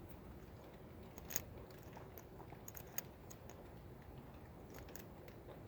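Faint, scattered metal clicks and scrapes of a Sparrows lock bypass tool being worked into a lock, which it fails to open.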